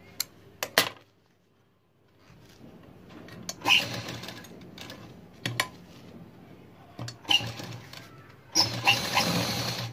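Household sewing machine stitching in short runs that start and stop, with a few sharp clicks in the first second that fit scissors snipping.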